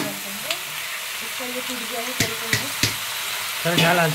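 Snails in their shells sizzling in hot oil with browned onions in a metal wok. A spatula stirs them, and the shells click against the pan several times.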